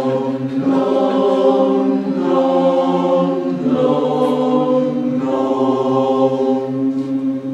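The lead and bass sections of a vocal chorus singing long held notes together in a tuning and blend exercise, with the leads held back in volume to sing into the bass sound. The notes change a few times.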